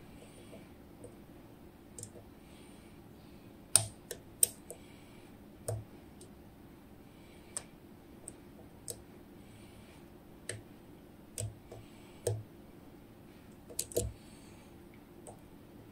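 Lock pick and tension wrench working in the keyway of a DOM IX Twido high-security cylinder lock: irregular small sharp clicks with faint scraping in between, the loudest clicks about four seconds in and near the end.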